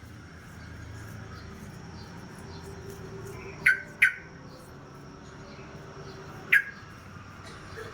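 Yellow-vented bulbul (trucuk) giving three short, sharp calls, a quick pair about halfway through and one more near the end, each dropping quickly in pitch.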